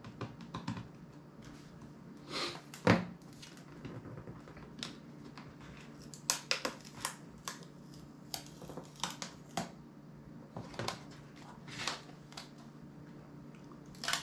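A smartphone being prised apart by hand: irregular small plastic clicks, snaps and scrapes of its case and frame, the loudest a sharp click about three seconds in. A low steady hum sits underneath.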